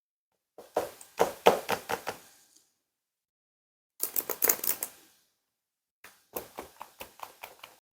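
Three short bursts of rapid clicks and knocks, several quick taps each, from hard parts of a portable laptop desk being handled and fitted together.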